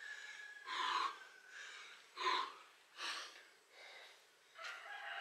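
A person breathing hard from heavy exertion, with short, forceful exhales about once a second.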